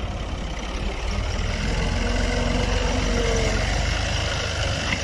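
Ghazi farm tractor's diesel engine running steadily under load, pulling a five-tine plough through the soil.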